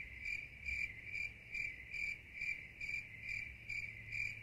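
Cricket chirping in an even rhythm, a high chirp about twice a second, over a faint steady low hum.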